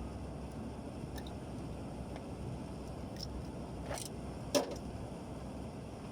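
Steady low rumble, with a few faint clicks and one sharp knock about four and a half seconds in.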